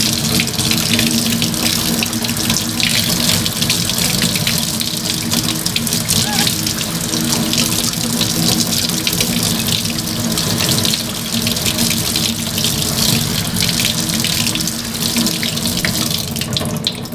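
Tap water running steadily into a sink while a puppy is bathed.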